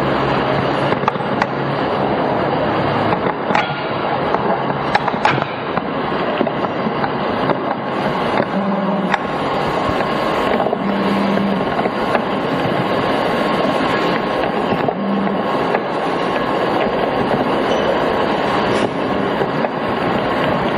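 Steady rushing noise with a few scattered faint clicks and short low hums.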